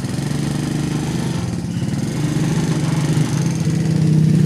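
Small motorcycle engine running steadily and getting louder toward the end as the bike pulls away towing a bakso cart; it is running again after a new spark plug was fitted.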